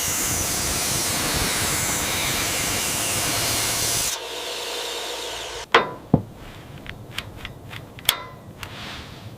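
A loud, steady rushing hiss that cuts off suddenly about four seconds in. Then come several sharp knocks and taps of hand tools on wood, the first two and one near the end the loudest.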